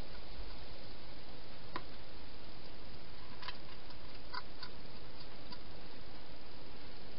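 Wild hedgehog eating dry food from a bowl: a few scattered crisp clicks of chewing, most of them in the second half, over a steady hiss.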